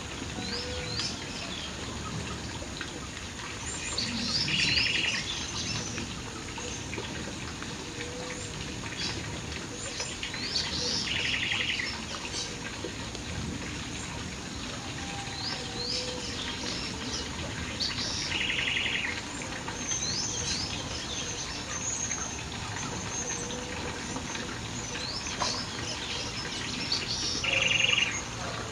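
Several wild birds singing and chirping over a steady background hiss. One bird gives a short, rapid trill four times, about every seven seconds, among many quick high chirps.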